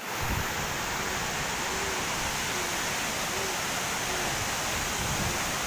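Waterfall rushing steadily, with uneven low rumble from wind on the microphone.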